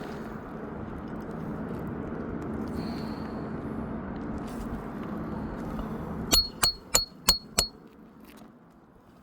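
Five quick hammer blows on a metal roof snake, each with a sharp metallic ring, driving a roofing nail under a lifted shingle. A steady low background noise runs underneath and drops away after the blows.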